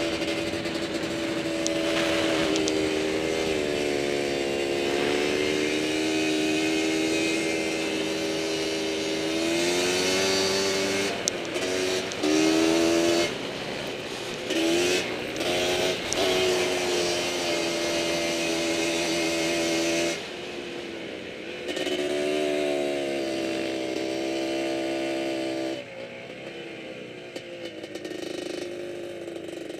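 Quad (ATV) engine running under the rider, its pitch rising and falling as the throttle is opened and eased. Around the middle there are several quick throttle blips and lifts. Toward the end the engine settles lower and quieter.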